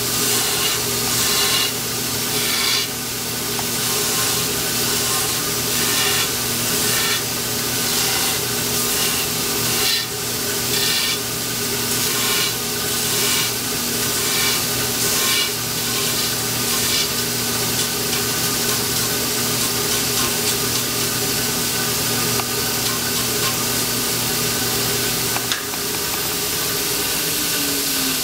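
Power grinder running with a steady hum while a longbow's tenon is ground and tapered in repeated rhythmic passes, about one every 0.7 s, for most of the first half. The grinding then stops, and a few seconds before the end the motor is switched off and winds down in a falling whine.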